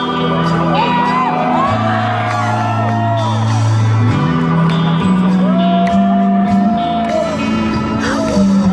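Live rock band playing in a large hall: steady bass notes changing every second or two under guitar chords, with a few high gliding notes over them.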